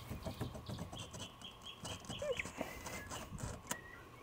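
Faint, irregular clicks and light knocks of hands working the steering intermediate shaft coupling in a pickup's engine bay. A run of about six quick high chirps comes about a second in.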